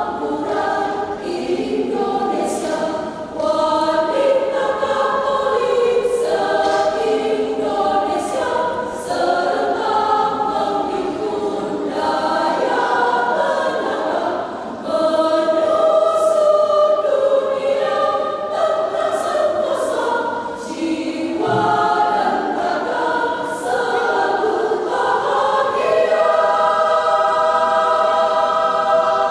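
Women's choir singing in harmony, with one long chord held steadily near the end.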